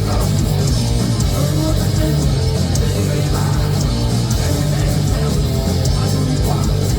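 A heavy metal band playing live: distorted electric guitars and bass guitar over drums and cymbals, with steady loudness and no singing.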